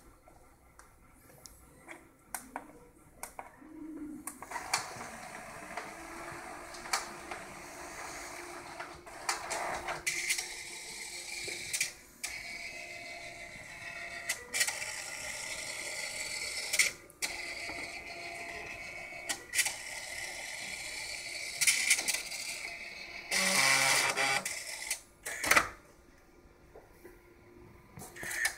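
ADIC FastStor 2 tape autoloader's exposed internal mechanism at work. There are a few sharp clicks, then about four seconds in its motors start a steady whir laced with clicks and clacks of the moving parts. This runs for about twenty seconds, with a louder stretch near the end, before dropping back to scattered clicks.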